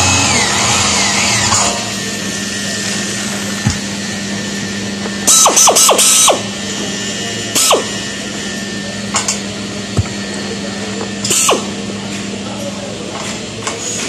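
Handheld power drill boring into an aluminium curtain-wall profile for about a second and a half. Short trigger bursts follow: three quick spins about five seconds in, then single spins near eight and eleven seconds, each winding down in pitch as the trigger is released. A steady low hum runs underneath.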